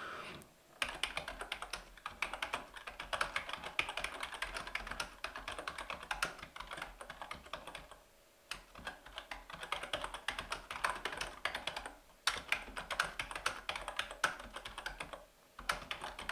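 Typing on a computer keyboard: quick runs of key clicks, broken by three short pauses.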